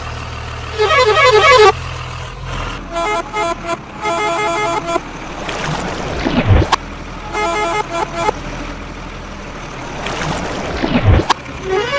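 A run of cartoon-style vehicle sound effects: short bursts of beeping horn toots in quick stepped-pitch patterns, two whooshing sweeps, and a low engine rumble over the first few seconds.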